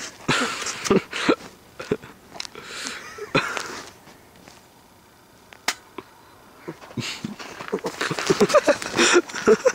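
Irregular crunching and rustling of footsteps and body movement, quieter in the middle and busiest near the end, with one sharp click about six seconds in.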